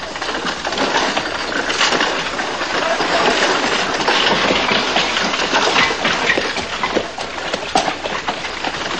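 Wooden animal-drawn cart rolling along a rough dirt road, a continuous dense rattle and clatter of wheels, with hooves and footsteps mixed in. It grows louder about a second in.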